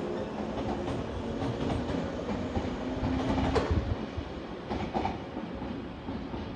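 JR West 113 series 2000 electric train pulling away, its wheels clattering over the rail joints under a low hum. A sharp metallic clank comes about three and a half seconds in, then the sound fades as the train draws away.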